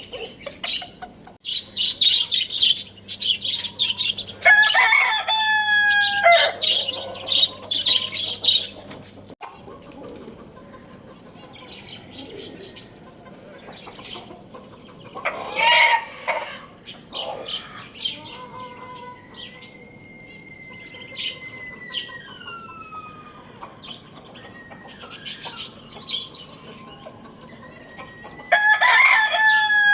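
Roosters crowing, one call about five seconds in and another near the end, with other calls in between, including a long drawn-out one that slides down in pitch. Small birds chirp busily in the first part.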